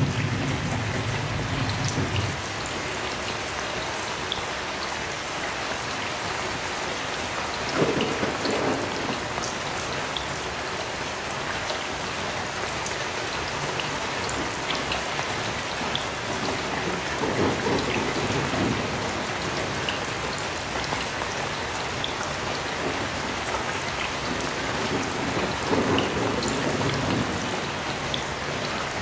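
Heavy rain falling steadily, with low rolls of distant thunder swelling up roughly every eight or nine seconds: one fading about two seconds in, others about a third of the way, two thirds of the way and near the end.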